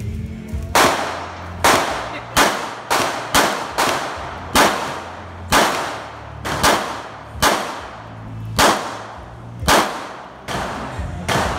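Compact semi-automatic pistol firing a string of about fifteen shots at an uneven pace, roughly half a second to a second apart, each report followed by a short echo under the metal roof of the range.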